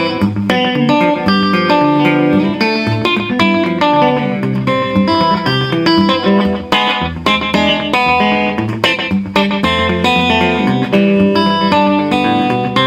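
Gretsch Chet Atkins Country Gentleman hollow-body electric guitar fingerpicked Travis-style, a thumbed bass line under a picked melody, played through an amp with an Echoplex slapback echo.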